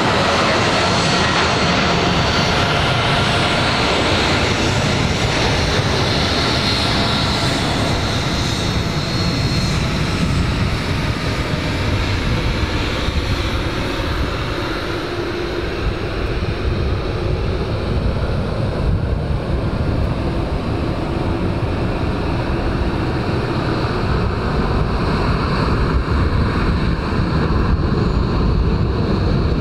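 Boeing 737-800's CFM56-7B turbofans running at takeoff thrust as the jet rolls down the runway: a high whine over loud jet noise. The whine fades about ten seconds in, leaving a low rumble as the aircraft moves away.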